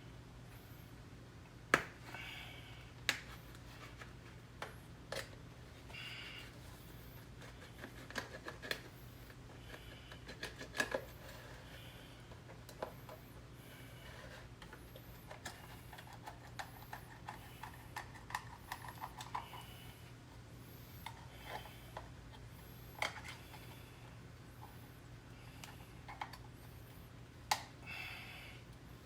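Scattered sharp clicks and knocks with a few short squeaks: hands working plastic gear-oil bottles and a hand fluid pump.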